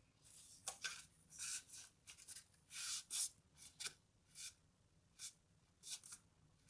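Hands rubbing, sliding and pressing cardstock panels, making a string of brief dry paper rustles and scrapes as a glued panel is pressed down onto the folded card.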